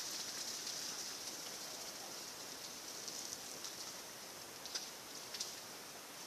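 Steady high-pitched hiss of forest ambience, with two short sharp clicks near the end.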